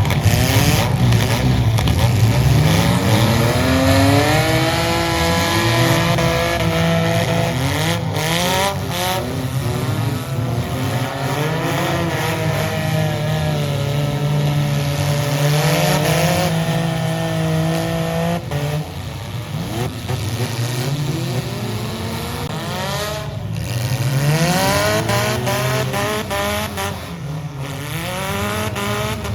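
Several demolition derby cars' engines revving hard, their pitch climbing and dropping again and again as they accelerate, with a few brief bangs from collisions.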